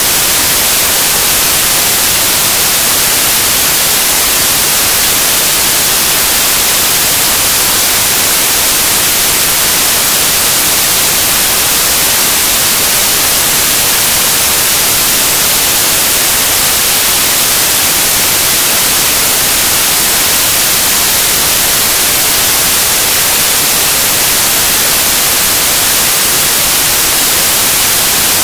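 Loud, steady hiss of static, strongest in the high range and unchanging throughout, with no sound of the match coming through.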